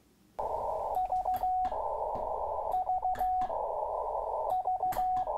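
Morse code tone heard through a ham radio receiver over band hiss: three groups, each a few short dits followed by one long dah, with scattered static crackles.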